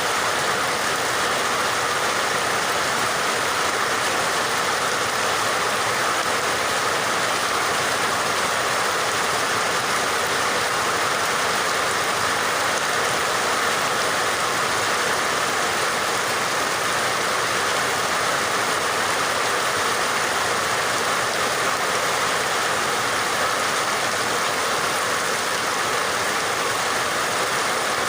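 Steady rain falling: an even, continuous hiss with no breaks or changes.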